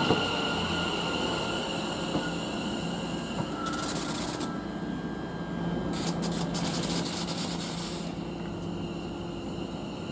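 Class 720 Aventra electric multiple unit running along the platform, a steady electric hum and whine over wheel-on-rail noise. There are bursts of hiss about halfway through, and the sound eases off near the end.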